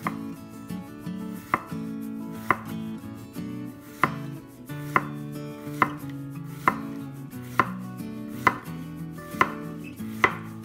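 Chef's knife slicing a peeled green plantain into rounds on a wooden cutting board, each cut ending in a sharp knock of the blade on the board, about one a second.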